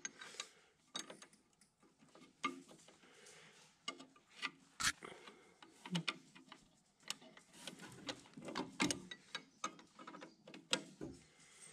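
Hand wrench clicking and clinking on a steel grease zerk as it is screwed back into the baler and turned into position: a run of irregular small metal clicks and ticks, with one sharper click about five seconds in.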